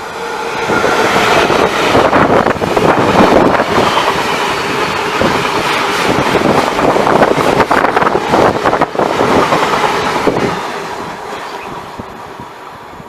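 A train passing at speed: the noise builds quickly, stays loud for about nine seconds with a rapid clatter of wheels on the track, then dies away near the end as the train leaves.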